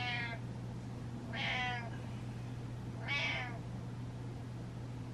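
A domestic cat meowing for attention: three short meows about a second and a half apart.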